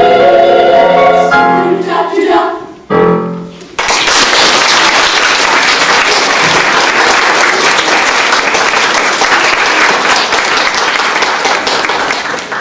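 Boys' choir singing the last phrases of a song, which stops about four seconds in, followed by an audience of schoolchildren applauding steadily.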